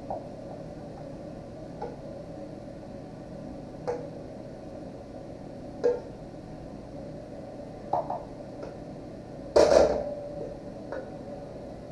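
Wooden spoon knocking and scraping in a wok of vegetables, a short knock about every two seconds. Near the end there is a louder clatter as the wok is set down on the electric cooktop.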